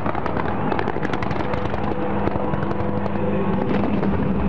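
Fireworks crackling and popping in quick, dense succession, thickest at first and thinning towards the end, over a steady low drone.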